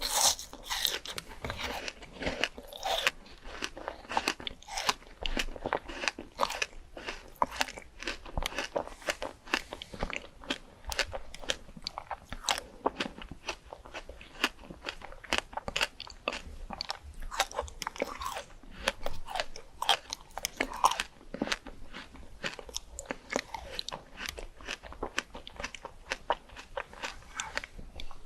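Close-up eating sounds: crisp fruit being bitten and chewed, a dense run of irregular wet crunches and crackles several times a second.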